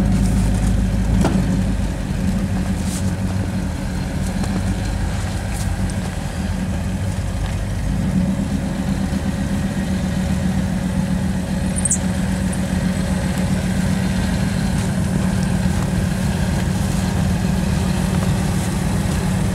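Lifted off-road truck's engine idling steadily, a little louder about halfway through.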